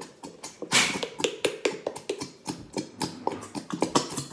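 Small plastic glitter-glue squeeze bottles being squeezed and worked to get the glue out: a quick irregular run of clicks and pops, about four or five a second, with a louder burst about a second in.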